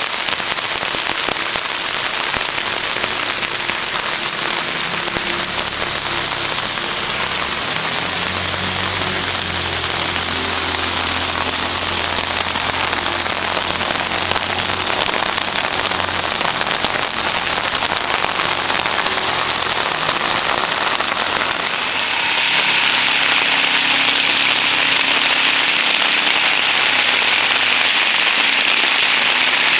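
Heavy monsoon rain pouring steadily. Midway a low engine hum runs under it for several seconds as an auto-rickshaw moves through the flooded street. About two-thirds through, the sound changes abruptly to a brighter, hissier rush of rain.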